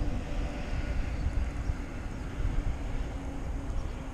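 Wind rumbling unevenly on the microphone.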